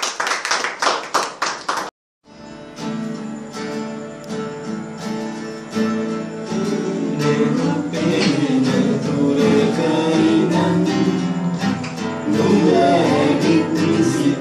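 Steel-string acoustic guitar strummed quickly and rhythmically, breaking off briefly about two seconds in. Strummed chords then resume, and singing joins the guitar a few seconds later.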